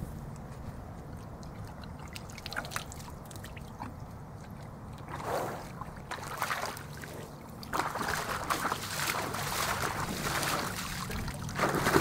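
Water sloshing and splashing as a horse moves about in a shallow puddle. It is light and broken at first, then runs on continuously from about two-thirds of the way in and grows louder toward the end.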